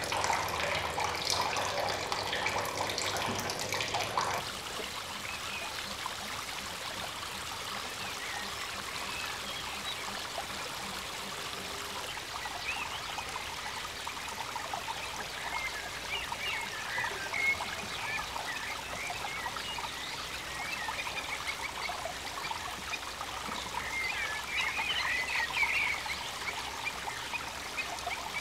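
Running water: a louder splashing flow into the ducklings' tub for the first few seconds, then a softer steady trickle of the aviary pond. Short high chirps are scattered over it, more of them near the end.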